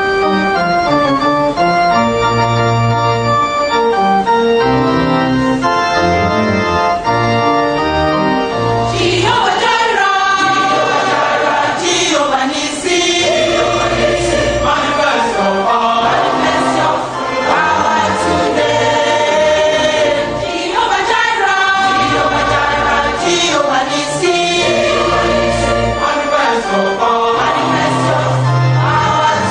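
Gospel music: held organ chords, joined about nine seconds in by a choir singing over the organ.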